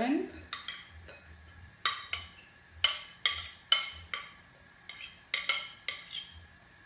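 A spoon pushing chopped onion off a plate into a glass mixing bowl, clinking against the plate and bowl: a dozen or so sharp taps at irregular intervals.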